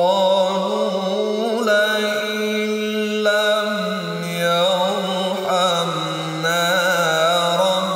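A male qari reciting the Qur'an in melodic tilawah style, singing one long phrase of drawn-out, ornamented notes with a wavering vibrato, stepping to new pitches about three and six and a half seconds in.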